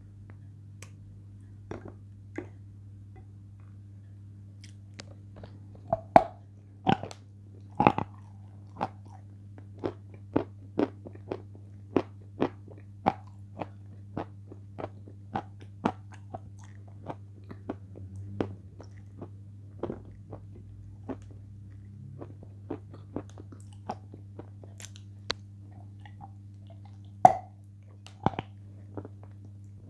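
Mouth sounds of eating thick cream off the fingers: a string of sharp, wet smacks and sticky clicks, one or two a second, louder around six to eight seconds in and again near the end, over a steady low hum.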